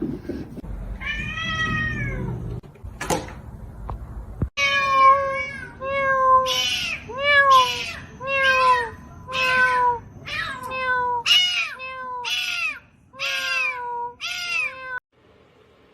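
Cat meowing over and over: a few calls over a low rumble, then a quick run of about a dozen short meows, each rising then falling in pitch, that stops just before the end.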